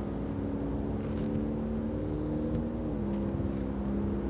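Distant diesel-electric freight locomotives, GE four-stroke V12 units, running as the train approaches: a steady engine drone with a few held tones that step slightly lower about three seconds in.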